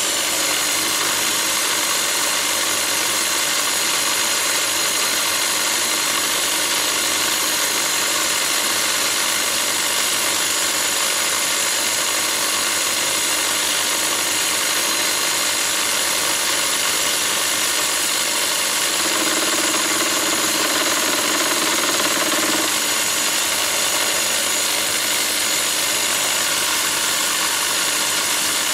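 Electric drill running steadily at constant speed with a thin high whine, spinning a homemade fly cutter on a lathe milling attachment as it mills a flat on a mild steel bar.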